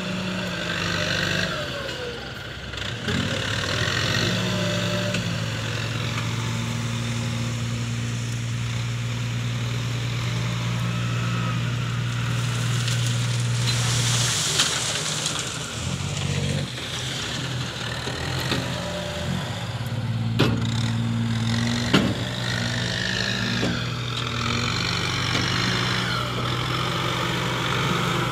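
Ford 7740 tractor's diesel engine running steadily as the tractor drives and pushes soil with its front blade, its note dipping briefly about halfway through. Two sharp knocks come about two-thirds of the way in.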